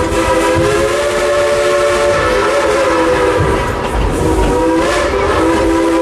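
Coal-fired steam locomotive's whistle blowing one long blast of several tones at once, wavering briefly about four seconds in, over the low rumble of the train running.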